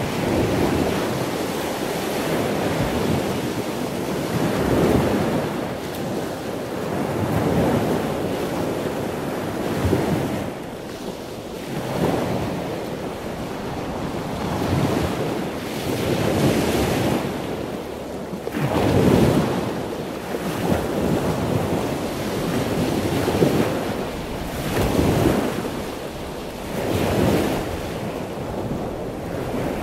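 Sea waves breaking and washing up a beach, the surf swelling and falling away every two to three seconds.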